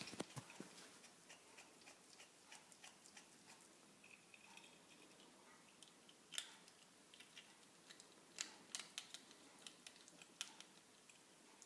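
Faint, irregular sharp clicks from a ferret eating, with a few louder clicks in the second half. This is her strange eating noise, which the owner wonders is teeth grinding, a possible sign of abdominal pain.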